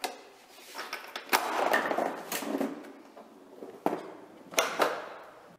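Homemade cardboard pinball machine in play: a ball launched by the spring plunger rolls across the cardboard playfield with several sharp knocks as it hits the flippers and walls.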